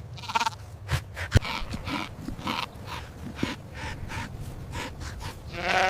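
An animal's quick, repeated short breaths or calls, about two a second, with a longer pitched call beginning near the end.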